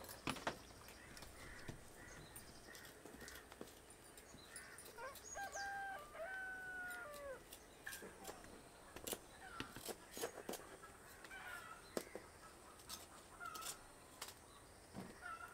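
A rooster crowing once, about five seconds in, against scattered faint clicks of a small knife peeling shallots.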